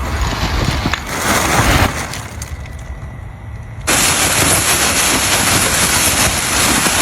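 An aerosol can hissing: a long, steady spray of fart spray that starts suddenly about four seconds in.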